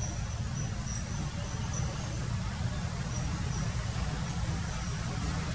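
Outdoor ambience: a steady low rumble, with a faint high-pitched insect trill that comes and goes.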